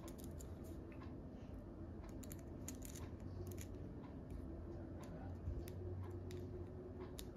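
Faint, scattered light clicks and ticks of a small hand tool fitting and turning tiny screws in a 3D touch probe's housing.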